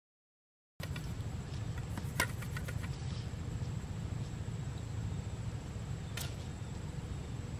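Outdoor field ambience by a small stream, starting about a second in after silence: a steady low rumble with a constant thin high-pitched tone over it. A quick cluster of sharp clicks comes about two seconds in and a single click near the end, from the fishing gear being handled.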